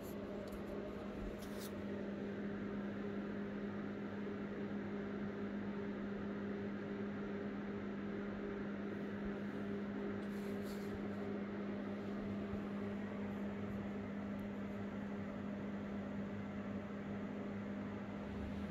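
Steady machine hum: a constant low tone over an even hiss, unchanging throughout, like an appliance motor running.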